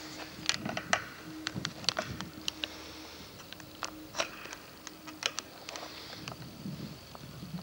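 Irregular sharp clicks and crackles, a dozen or so scattered unevenly, over a faint steady hum.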